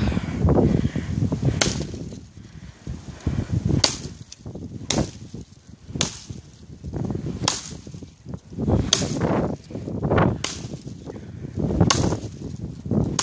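Fiskars brush axe chopping into dead brush and branches: about eight sharp strikes, one every one to two seconds.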